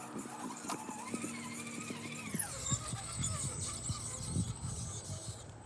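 An RC rock crawler's electric motor and gears whining under throttle, then easing off and falling in pitch about two and a half seconds in. Scattered low knocks follow.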